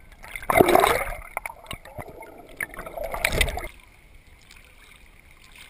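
Water churning and splashing right against a swimmer's waterproof camera, in two loud bursts about half a second and three seconds in, then only a faint, muffled hiss.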